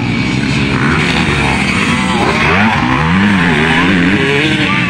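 Motocross dirt bike engines revving as the bikes race past on the dirt track. The pitch rises and falls repeatedly as the riders work the throttle, loudest in the second half.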